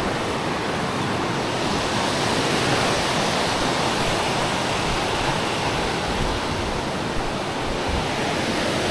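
Steady rushing of flowing water, an even hiss without a break.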